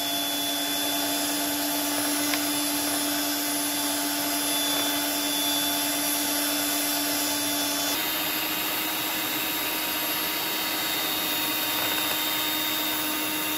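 Electric hand mixer running steadily, its two beaters whipping marshmallow mixture in a glass bowl until it thickens to ribbon-like peaks. Its tone shifts slightly about eight seconds in.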